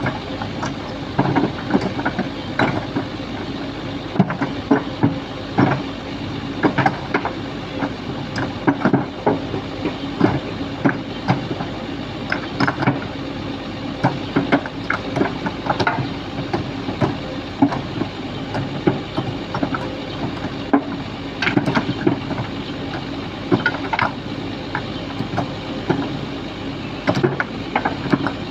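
Sany SY215C excavator's diesel engine running steadily under load, with frequent irregular knocks and clatter of crushed stone being scooped and dumped.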